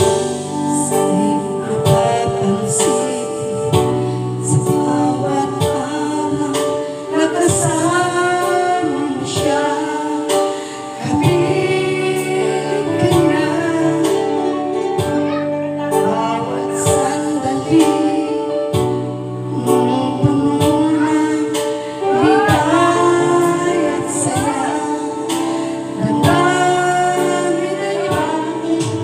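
A woman singing into a corded handheld microphone over a karaoke backing track with a steady beat.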